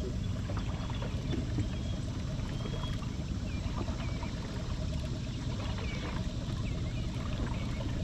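Steady low rumble and water noise of a small boat on the water, with faint short chirps of birds scattered through.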